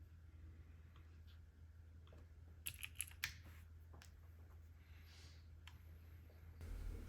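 Mostly near silence over a steady low hum. About three seconds in comes a quick cluster of about four sharp clicks: keys pressed on a mechanical keyboard with clicky Razer Green switches. A soft low bump follows near the end.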